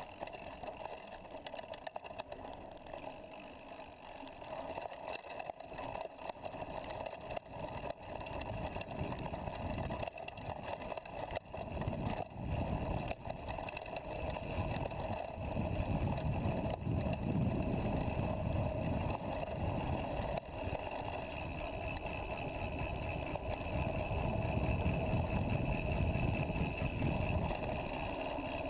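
Mountain bike riding a dirt singletrack, heard from a camera mounted on the bike: knobby tyres rolling over dirt and loose rock, the bike rattling, and wind rumble on the microphone. The rumble grows louder about halfway through as speed builds.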